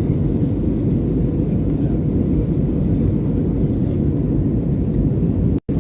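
Steady low rumble of an Airbus A320neo's engines and airflow heard inside the passenger cabin, cutting out for an instant near the end.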